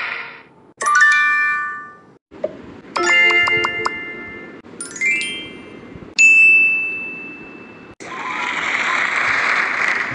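A string of separate game-show correct-answer sound effects: short bright bell chimes and dings, one a quick rising run of notes and one a single ringing ding that fades. Near the end comes a steady noisy rush lasting about three seconds.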